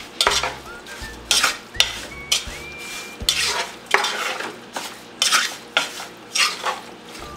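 A wooden spoon stirring raw catfish pieces and sugar in a pot, with repeated wet scraping strokes against the pot at roughly one to two a second. The heat is off, so there is no sizzle.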